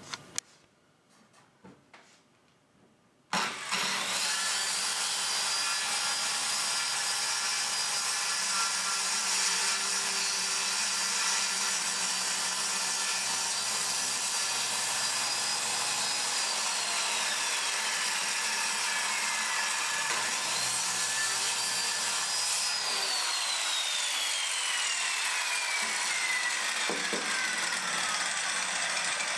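Circular saw starting about three seconds in and cutting plywood, running loud and steady; its high motor whine rises, holds, then sinks in pitch twice during the cut.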